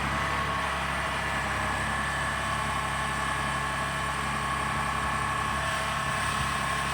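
Small Kubota compact tractor's diesel engine running steadily at a constant speed, with a steady whine above the engine.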